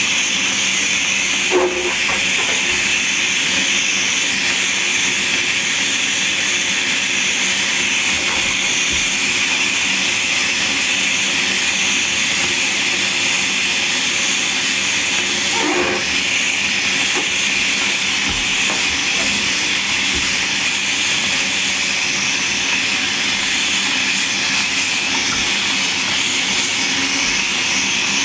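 Water running steadily into a bathtub with a constant hiss.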